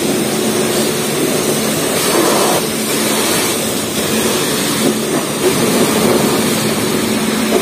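Self-service car wash high-pressure wand spraying water onto a foam-covered car: a loud, steady hiss of spray over a steady low hum.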